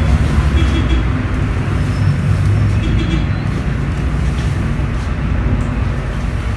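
Steady low rumble of a road vehicle in motion: engine and road noise.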